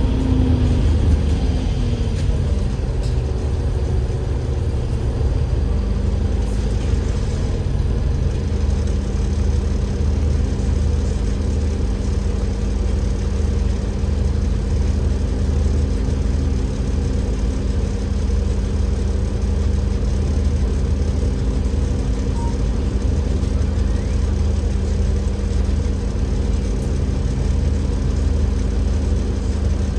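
Inside a double-decker bus, its Cummins L9E six-cylinder diesel engine and ZF Ecolife automatic gearbox running with a deep steady hum. A brief falling tone in the first couple of seconds settles into a steady whine that holds for the rest of the time.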